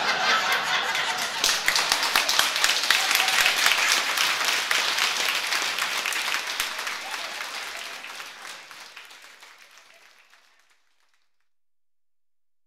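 Audience applauding after the punchline of a comic sketch, the applause dying away over several seconds and ending about eleven seconds in.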